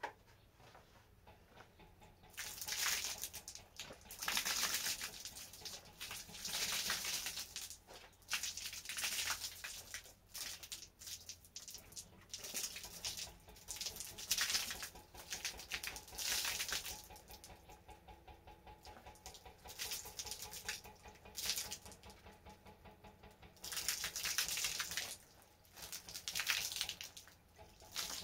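Water thrown by hand from a plastic bowl, splashing against cinder-block walls again and again, about one splash every two seconds.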